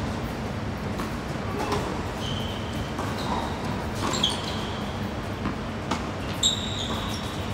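Tennis doubles rally on an indoor hard court: several sharp racket hits and ball bounces at uneven intervals, the loudest about four and six and a half seconds in. Short high squeaks from sneakers on the court come in between. A steady low hum runs underneath.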